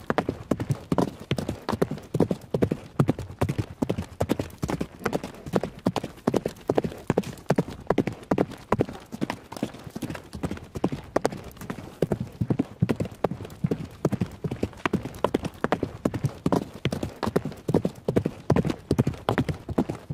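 Horse galloping: hoofbeats in a fast, steady rhythm, a cluster of hoof strikes repeating about every two-thirds of a second, stopping abruptly at the end.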